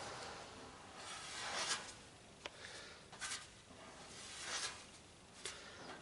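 Rubber spreader drawing body filler across a curved car body panel: faint scraping strokes about a second apart, with a sharp click about two and a half seconds in.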